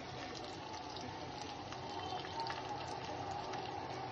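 Semolina-coated catla fish frying in shallow hot oil: a steady sizzling hiss with small scattered crackles.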